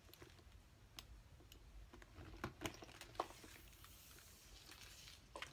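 Faint, scattered clicks and light handling noise from a handbag shoulder strap's metal clasps being clipped onto the bag's rings.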